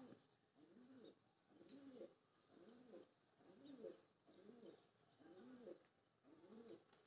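Pigeon cooing faintly: a steady run of short coos, each rising then falling in pitch, about one a second.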